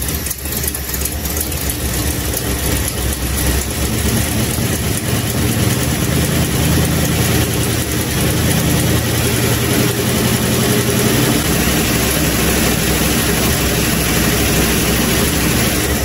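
1970 Plymouth Custom Suburban's V8 engine running steadily just after a cold start, newly fitted with a replacement timing chain and with no coolant in it. It runs poorly: "a runner, but not very well."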